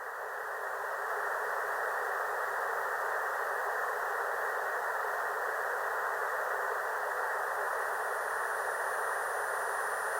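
Steady filtered white noise for tinnitus sound therapy: an even hiss centred in the middle range, swelling up during the first second and then holding level. Faint high steady tones come in about seven seconds in.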